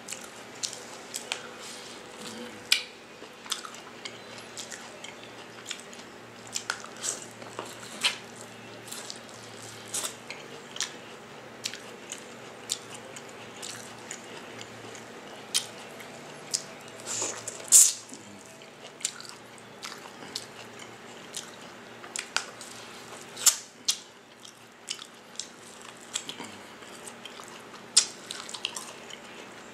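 Close-up eating of a seafood boil: wet chewing and lip-smacking with irregular sharp clicks and smacks, the loudest about two-thirds of the way through.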